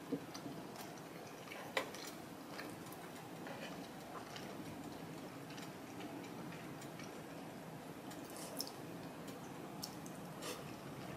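Close-up chewing and wet mouth sounds of someone eating grilled beef steak and rice, with scattered small clicks and taps throughout, the two sharpest about a second apart near the start.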